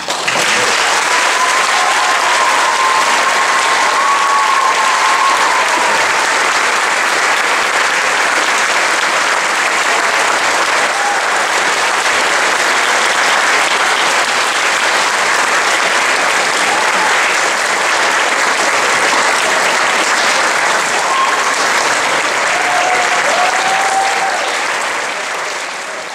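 Audience applauding steadily, starting as the band's last note ends and beginning to thin out near the end.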